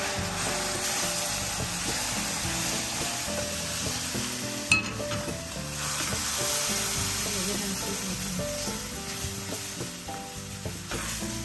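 Water poured into a hot frying pan of toasted flour, sizzling as the thickening paste is stirred hard with a spatula. A sharp knock about five seconds in.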